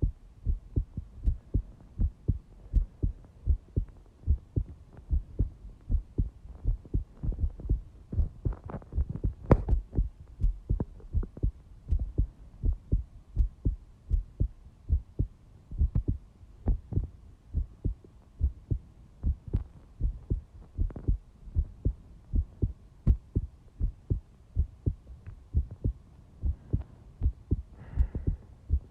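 A heartbeat recorded close up: regular low thumps beating steadily. A brief louder knock breaks in about nine to ten seconds in.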